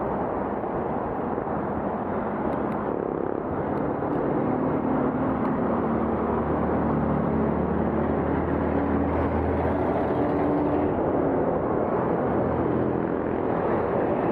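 Steady city street traffic noise with wind over the bike camera's microphone, and a motor vehicle engine running close by from about four to eleven seconds in.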